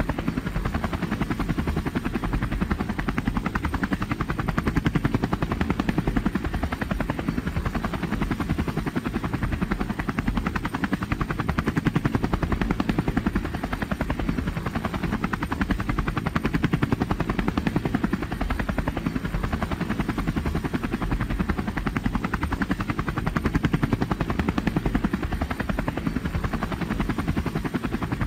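Robinson R44 Clipper II helicopter in cruising flight, heard from inside the cabin: a steady, loud drone of engine and rotor with a fast, even pulsing from the two-blade main rotor.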